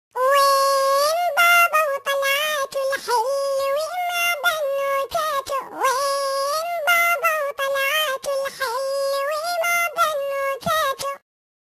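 A single high, pitch-shifted synthetic singing voice carries a melody in long held notes without recognisable words. It stops shortly before the end.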